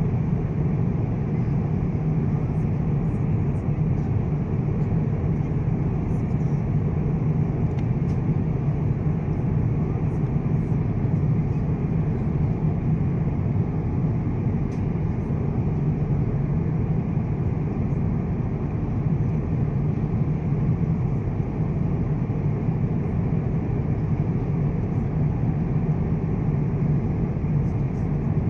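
Steady in-flight cabin noise of an Airbus A350-900: an even, low rush of airflow and engine noise.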